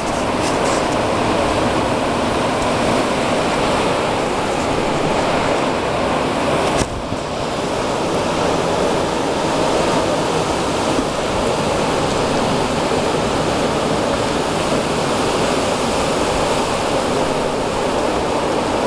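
Steady, loud rushing of blizzard wind, with one sharp click about seven seconds in.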